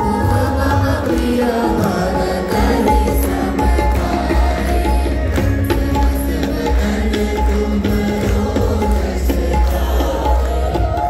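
Live devotional song played over PA speakers: singing with percussion on a steady, heavy beat, the audience clapping along.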